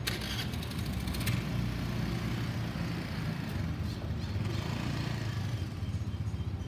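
Boeing 737-900ER's CFM56-7B turbofans passing high overhead: a steady low jet rumble. A brief rattle of clicks in the first second or so.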